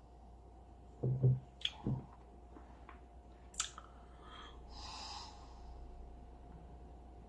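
Mouth sounds of a person tasting a sip of beer: a few low swallowing and lip sounds, a glass clicking down onto a table about three and a half seconds in, then a soft breath out through the nose.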